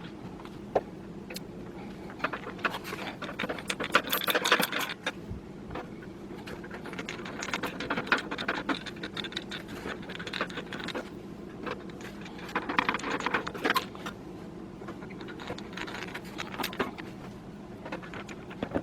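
Hand screwdriver driving small motherboard screws into metal case standoffs: light metallic clicks and short bursts of scraping and clinking, in several separate spells, over a faint steady hum.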